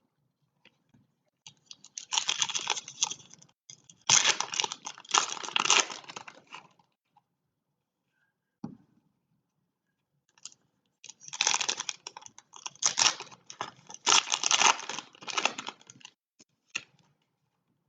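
Foil trading-card pack wrappers being torn open and crinkled, in two bouts of crackling a few seconds each, with a single soft knock between them.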